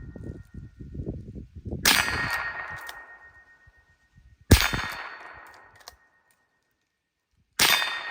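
Three .22 rimfire shots from a Marlin 39A lever-action rifle, a little under three seconds apart. Each is followed by a steel squirrel target ringing with a clear metallic tone that fades over a couple of seconds, the sign of a hit.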